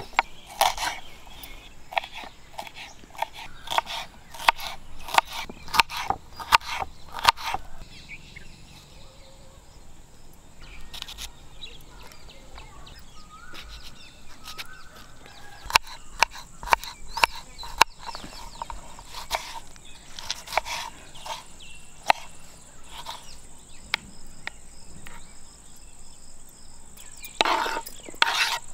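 Small kitchen knife chopping capsicum and tomato on a wooden cutting board: runs of sharp knocks about two a second, with pauses between runs. Near the end the knife scrapes the chopped pieces off the board.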